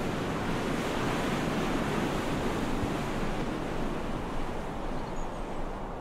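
Sea waves at night, a steady rushing wash of surf, thinning slightly in the highs near the end.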